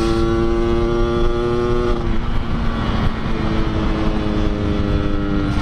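Yamaha RX-King's 135cc two-stroke single, fitted with an under-slung 'kolong' expansion-chamber exhaust, running at a steady speed on the road. The note holds steady, fades for about a second around two seconds in, then comes back steady, over a low rumble.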